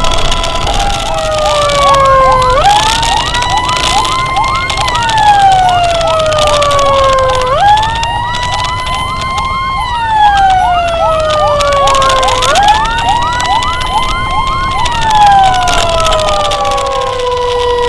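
Emergency sirens wailing over steady road noise. The main tone jumps up, holds for about two seconds, then slides slowly down, repeating about every five seconds. A second siren chirps rapidly over it during the held parts.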